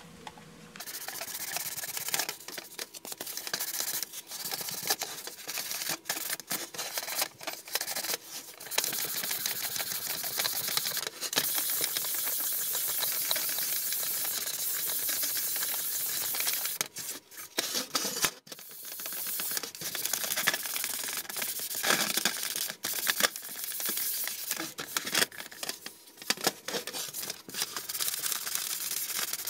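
400-grit sandpaper rubbed by hand over a primed ABS plastic RC car body: a dry scratching hiss in repeated back-and-forth strokes, with a short pause a little past halfway. The sanding knocks the primer down to show up the low spots and depressions in the body.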